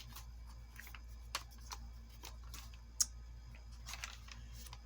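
Scattered light clicks and ticks of paper pages being handled and set down on a table, over a steady low hum.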